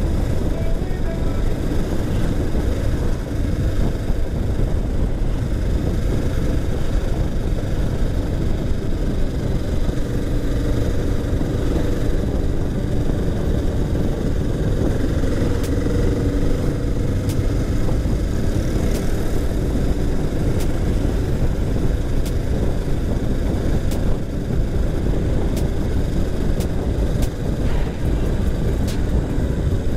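A motorcycle riding along at steady cruising speed: a continuous low rumble of engine and riding noise, with a few faint clicks in the latter half.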